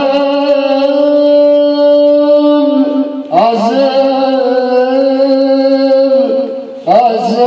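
A man singing an Arabic folk song into a handheld microphone, holding long drawn-out notes in three phrases. Each phrase opens with a short bend in pitch. There are short breaks about 3 seconds and 6.5 seconds in.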